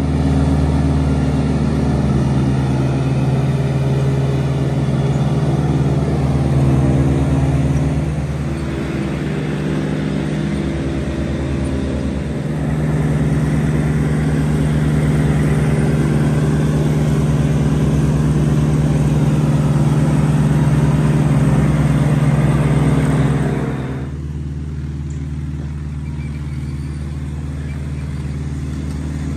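Model steam locomotive and train running along garden railway track: the steady hum of its electric motor and gearing, with the rush of wheels rolling on the rails. Near the end the higher rushing sound falls away and the running becomes quieter.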